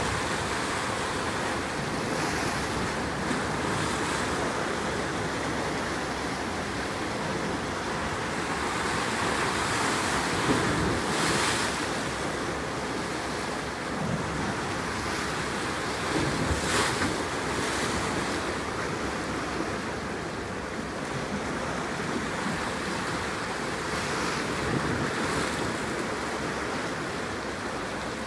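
Wind blowing across the microphone over the wash of choppy sea water, with stronger gusts about ten seconds in and again a little later.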